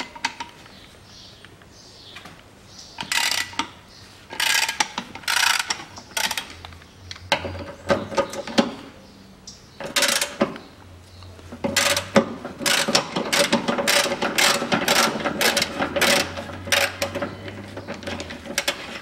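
Hand ratchet wrench clicking as it turns the bolts of a car's lower engine mount, in short bursts of rapid clicks that come thickest in the second half.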